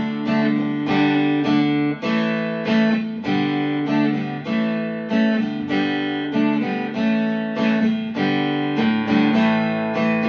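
Music: an acoustic guitar strummed in a steady rhythm, an instrumental break with no singing.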